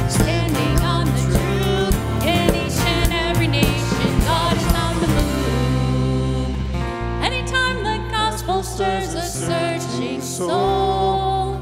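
Contemporary worship song performed by a band with a lead singer, over a steady low bass line; the beat thins out about halfway through.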